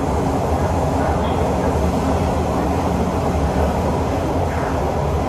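Kawasaki C151 metro train running between stations, heard from inside the passenger car: a steady, loud rumble of wheels on rail with a low, even hum from the traction motors.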